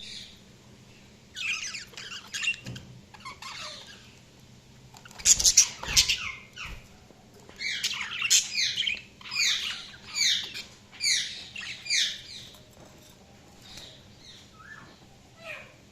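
Budgerigars chirping in irregular bursts of quick, high, falling chirps, loudest about five to six seconds in along with a few sharp clicks. A run of rapid repeated chirps follows, then fainter calls near the end.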